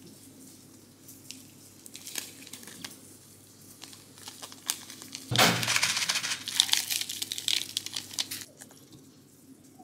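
Foil seasoning sachet crinkling in the hands, then torn open with a loud rip about five seconds in, followed by more crinkling as it is shaken out over the noodles.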